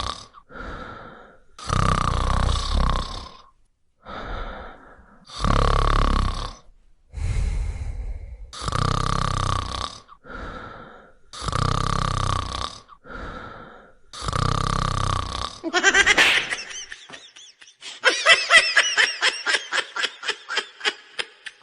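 A person snoring loudly, with a heavy rasping snore about every three seconds and quieter breaths between them. Toward the end this gives way to a rising squeal, then a fast stuttering run of pitched pulses.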